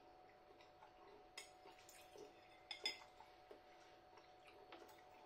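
Faint scattered clicks and taps of a fork against a bowl while eating spaghetti, the loudest pair nearly three seconds in, over a faint steady hum.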